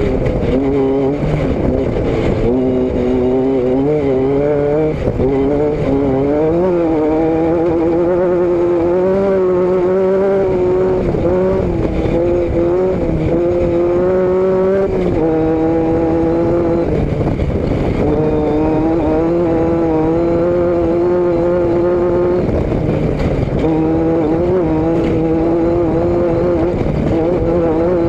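A vehicle engine running steadily under way at mid revs. Its pitch wavers and shifts up and down slightly as the speed changes.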